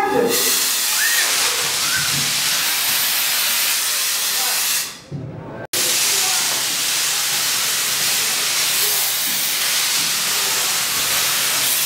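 Steady, loud hiss of rushing air from a running compressor. It dips and cuts off briefly about five seconds in, then carries on unchanged.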